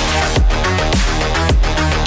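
Background electronic music with a steady, driving beat.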